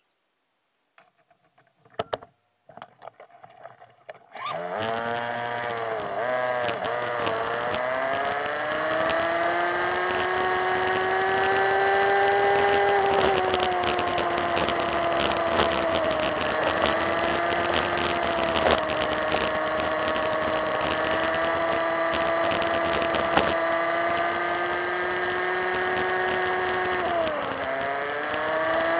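A few faint clicks, then about four seconds in a motorbike engine starts and revs up and down before settling into a steady running note as the bike rides along, with wind and road hiss. The engine note drops briefly near the end and then picks up again.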